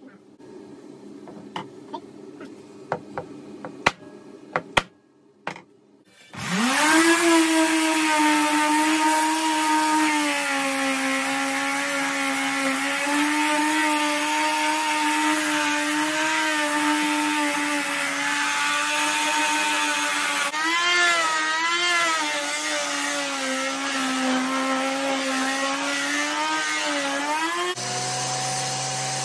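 Random orbital sander starting up about six seconds in, its whine rising and then running steadily on a wooden board, with a brief wavering in pitch partway through. A few light clicks come before it, and near the end it gives way to a different steady motor hum.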